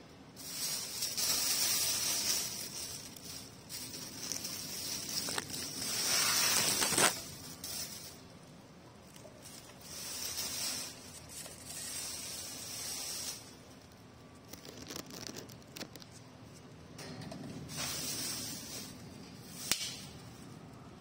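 Clear plastic wrapping on a new floor fan rustling and crinkling as it is handled, in irregular spells of a second or more. A single sharp click comes near the end.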